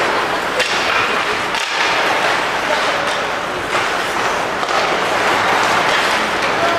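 Ice hockey arena during play: a steady wash of crowd noise and skates scraping the ice, broken by several sharp knocks of sticks, puck or boards.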